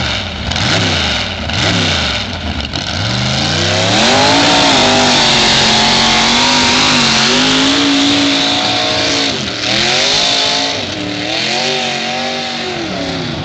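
Doodlebug pulling tractor's engine revving hard as it drags a weighted pulling sled. The revs climb steeply a few seconds in and hold high, dip sharply, then rise and fall unevenly near the end as the tractor bogs down.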